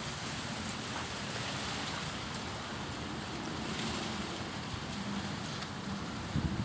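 Strong wind blowing steadily through trees, with gusts buffeting the microphone as low rumbles near the end.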